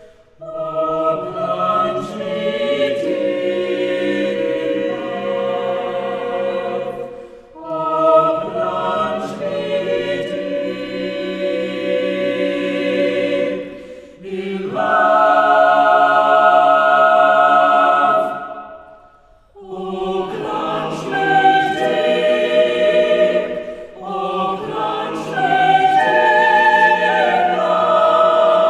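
Mixed chamber choir of women's and men's voices singing unaccompanied, in sustained phrases broken by short breaths.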